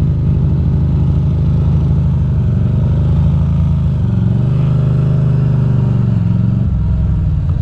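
Ducati Monster's L-twin engine running at low revs as the motorcycle is ridden slowly. The engine note shifts about four seconds in and drops lower near the end.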